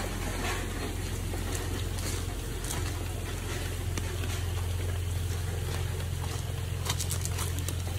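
Steady low hum of a running motor, with a few sharp clicks near the end.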